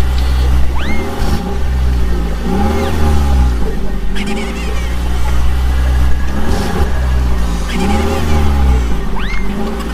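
Vehicle engine sounds, a steady low drone with pitch swells that rise and fall every couple of seconds, in a repeating pattern. Short whistle-like glides sound about a second in, near the middle and near the end.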